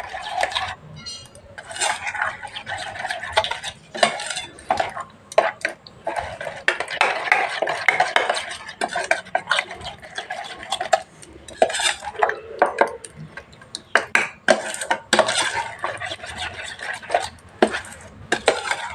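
Metal spoon stirring a thick, wet mustard-and-poppy-seed paste in a steel tiffin box, with repeated irregular scrapes and clinks of the spoon against the steel sides.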